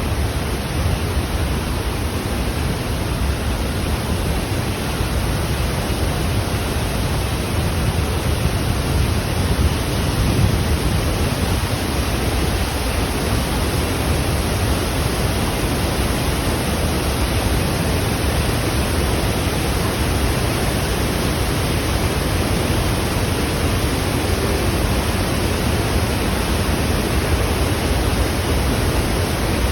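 Waterfall: water falling and crashing in a steady, unbroken rush, heaviest in the low end.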